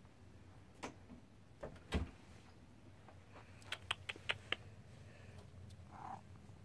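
Faint clicks and a single soft thump about two seconds in, then a quick run of four or five sharp clicks around four seconds, with a brief faint sound near the end.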